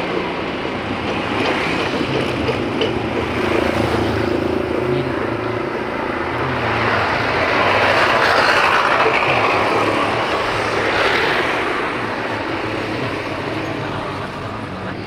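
Motorcycle riding at road speed: a steady low engine hum under heavy wind and road noise, which swells louder around the middle and eases off toward the end.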